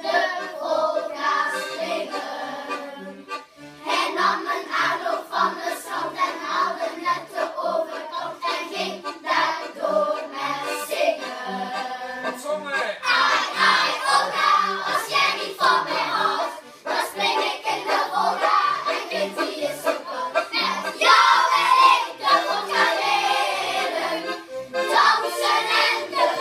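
Accordion accompaniment with short bass notes on a regular beat, while a class of children sings along.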